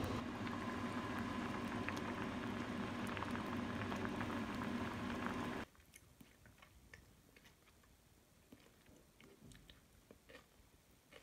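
A pot of soup boiling on the stove, a steady rushing noise with a faint hum, cuts off abruptly about halfway through. It gives way to faint crunching and chewing as a raw green chili pepper is bitten and eaten.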